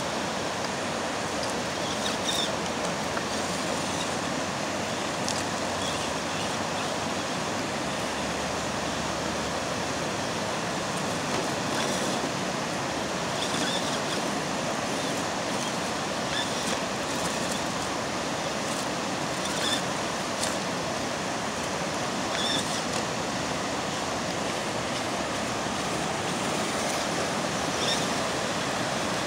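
River shoals rushing over rocks: a steady, even roar of white water, with a few faint short high sounds now and then.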